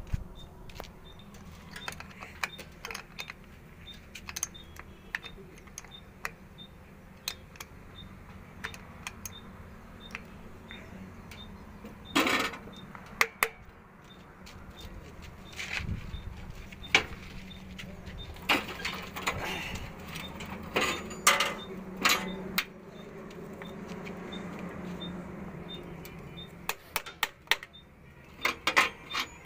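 Metal tools clinking and tapping on battery terminals and cable clamps as a second battery is wired in, in scattered sharp clicks that bunch together around the middle and near the end, over a low steady hum.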